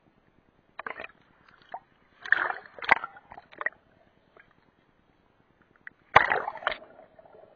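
Water sloshing and splashing around a camera held in shallow sea water, with sharp knocks in three bursts: about a second in, from two to nearly four seconds, and around six seconds in.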